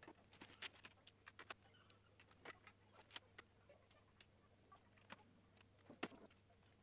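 Plastic Lego bricks clicking and clattering as they are handled and pressed together, in a string of small irregular clicks, the sharpest about six seconds in.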